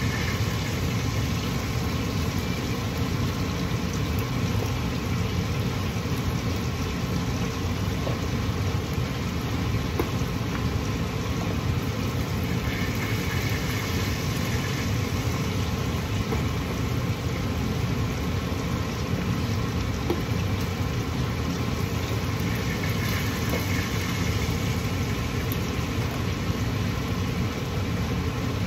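Kitchen range hood exhaust fan running with a steady low hum, with a few faint clicks now and then as vegetables drop into a stainless steel pan.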